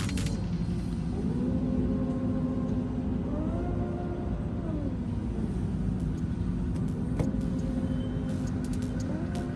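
Slow background music of long held notes that slide from one pitch to the next, over a steady low rumble.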